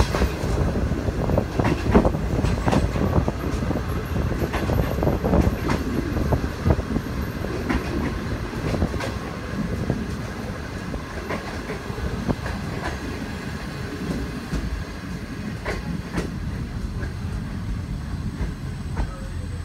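A conventional Chinese 'green-skin' passenger train's carriages rolling, heard through an open carriage window. There is a steady rumble with irregular clacks of the wheels over rail joints, and the clacks grow sparser and the noise quieter over the second half as the train slows into the station.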